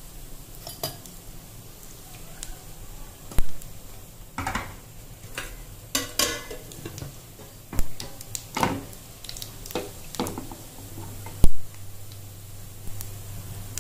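Mustard seeds, cumin seeds, chana dal and urad dal sizzling in hot oil in a steel pan as a tempering, a steady faint frying hiss broken by sharp scattered pops every second or two, the loudest near the end.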